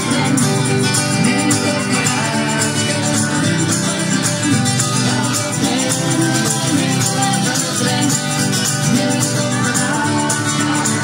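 Live acoustic band music, amplified: strummed acoustic guitars over a steady, lively beat.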